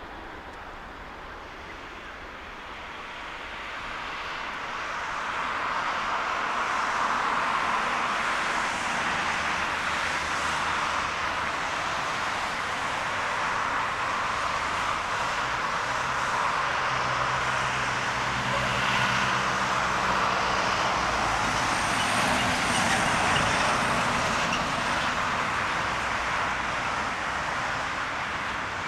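Airbus A380 jet engines, a broad rushing jet noise that builds over the first few seconds, then holds loud and steady before easing slightly near the end.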